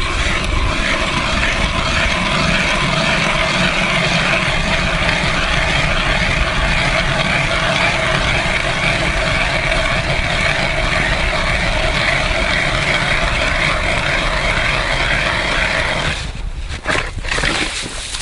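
Hand ice auger drilling through lake ice, a steady grinding of the blades cutting. The grinding stops about two seconds before the end, followed by a few knocks and scrapes as the auger is pulled up out of the hole.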